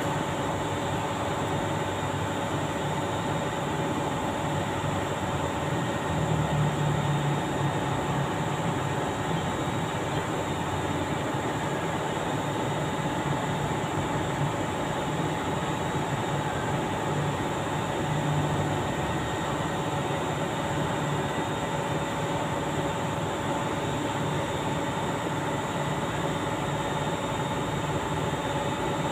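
Steady machine noise: a constant drone with a few fixed hum tones in it, unchanging throughout.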